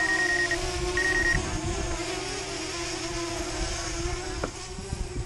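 DJI Spark quadcopter's propellers humming steadily in flight, with gusty wind rumbling on the microphone. A high electronic beep sounds at the start and stops about one and a half seconds in.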